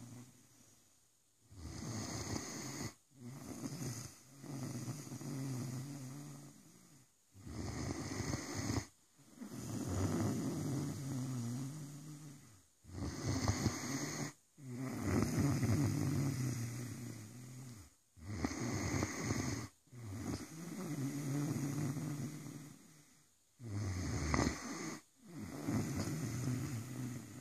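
Great Dane snoring in its sleep, a shorter rasp and a longer one with each breath, about one breath every five seconds.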